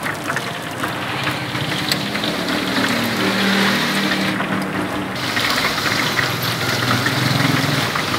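Oil sizzling and crackling steadily as breaded cutlets deep-fry in a steel tray, with scattered pops and tong clicks as they are turned.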